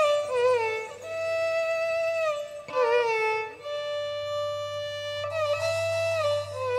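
Violin playing a solo melody in an instrumental break of a folk song, long held notes linked by sliding ornaments.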